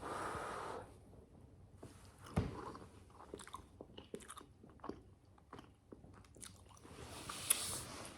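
Close-miked chewing and wet mouth sounds of someone eating a mouthful of cheesy enchilada, with many small clicks and one sharper knock about two and a half seconds in.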